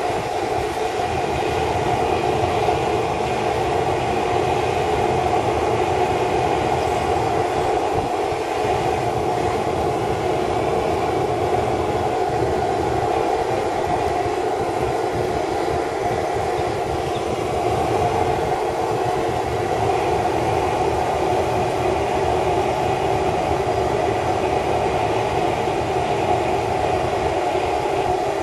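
Homemade propane forge's burner running with a steady, unbroken rushing flame noise while a leaf-spring blank heats in it.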